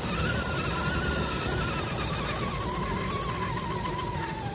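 Electric motor and gear drivetrain of a radio-controlled scale crawler whining steadily under throttle, the pitch sinking slowly in the second half, over the rumble of tyres rolling on gravel.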